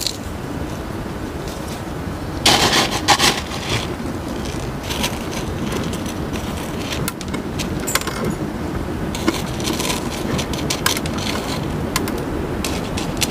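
Small gravel top dressing clattering in a plastic scoop and around a potted succulent as gloved hands work it. A dense burst of clatter comes about two and a half seconds in, then scattered clicks and rattles follow. A steady low rumble runs underneath.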